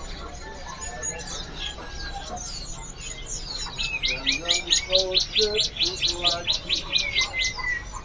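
Caged songbirds chirping. About halfway through, one bird breaks into a fast, even run of high repeated notes, about five a second, that lasts nearly four seconds.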